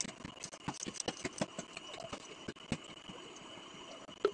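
Scattered light clicks and taps of a plastic bottle and its screw cap being handled and opened, with one sharper click near the end, over a faint steady high whine.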